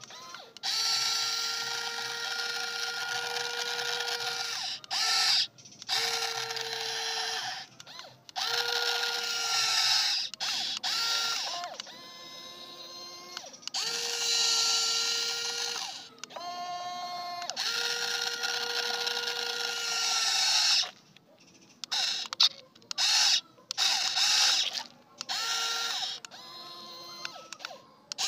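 Toy remote-control excavator's small electric motors and plastic gearboxes whirring in bursts of one to a few seconds, starting and stopping abruptly as the boom and bucket are worked. Some bursts carry a rapid clicking chatter from the gears.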